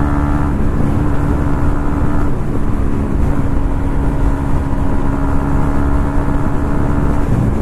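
KTM 200 Duke single-cylinder engine running steadily at highway cruising speed, around 100 km/h, with heavy wind rush on the microphone. The engine note dips briefly about two seconds in, then holds steady again.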